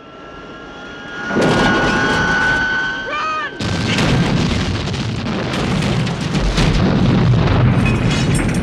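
Movie action-scene soundtrack: a held, slightly rising tone swells into heavy explosions and continuous rumbling booms about a second and a half in.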